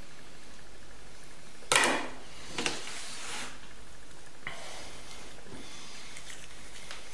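A kitchen knife set down with a sharp knock on a cutting board, followed by a smaller knock about a second later, then soft sounds of hands handling a raw chicken.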